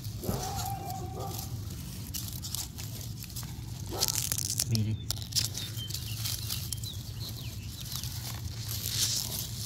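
Dry grass and straw rustling and crackling as a gloved hand parts the fur-lined covering of a rabbit nest, with louder bursts about four seconds in and near the end.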